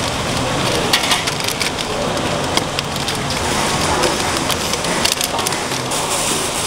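Thin plastic bags crinkling and rustling in handling, a run of quick sharp crackles over a steady background noise.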